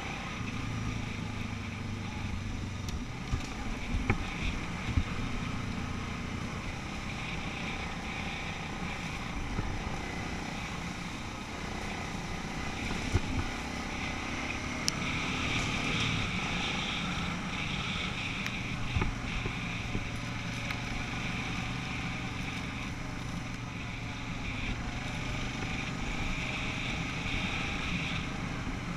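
An ATV engine running steadily as it rides over rough trail ground, with wind on the microphone and a few sharp knocks from bumps along the way.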